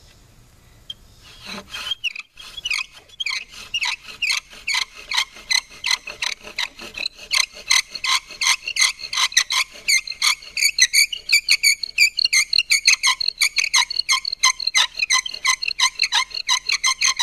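Bow drill at work: the wooden spindle squeaks in the wooden hearth board with each back-and-forth stroke of the bow, a rhythmic squeak starting about two seconds in. The strokes get faster and louder about halfway through.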